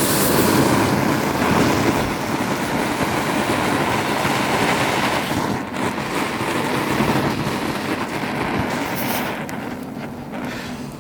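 A power tool working wood: a steady rough grinding noise that runs on without a break and eases a little near the end.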